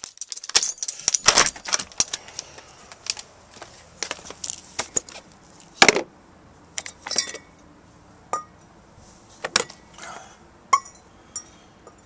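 Glass milk bottles being handled: a busy stretch of rattling and clicking in the first half, then a few separate clinks of glass, each with a short ring.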